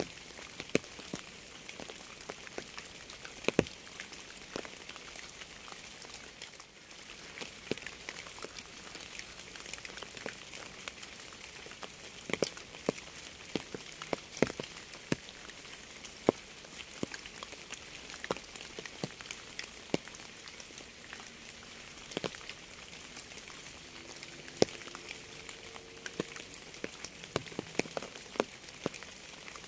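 Rain falling steadily: a soft, even hiss with many sharp, irregular taps of single drops striking close by.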